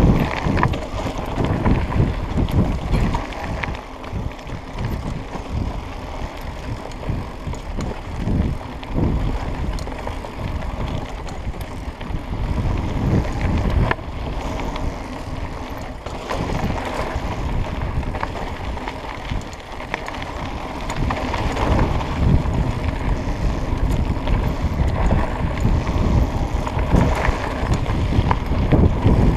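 Mountain bike descending fast on a dirt singletrack: wind buffeting the microphone over the rumble of knobby tyres on dirt, with occasional knocks as the bike goes over bumps. It gets louder in the last third.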